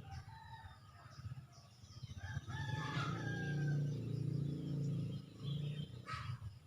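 A rooster crowing, one long crow starting about two seconds in, over small birds chirping and whistling.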